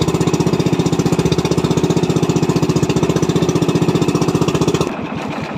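Motor of an outrigger fishing boat running under way with a fast, even chugging. It drops to a quieter idle about five seconds in.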